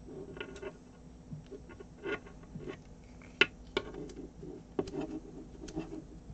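Small clicks and rustles of fingers handling the thin insulated conductors of an Ethernet cable, untwisting and straightening the wire pairs, with one sharper click about three and a half seconds in.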